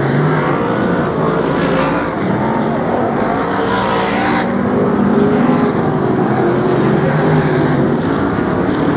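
A pack of BriSCA F1 stock cars' V8 engines racing, loud and continuous, with a brief rise of hiss about four seconds in.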